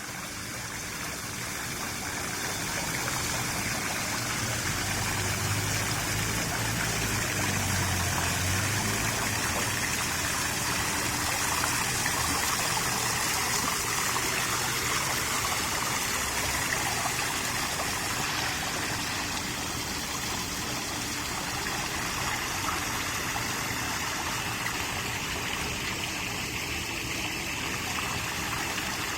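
Water running steadily down a landscaped water wall and waterfall feature, splashing and trickling into the pool below.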